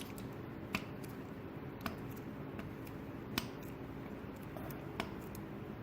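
Small metal parts clicking, four sharp light clicks spread out, as the points base plate and its new gasket are slid onto the engine. A steady low hum runs underneath.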